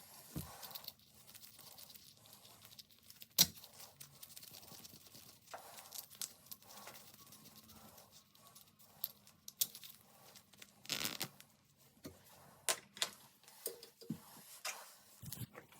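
Handling noises during toilet repair work: scattered sharp clicks and knocks, the loudest a few seconds in, with stretches of scraping and rustling, like tools and parts being handled.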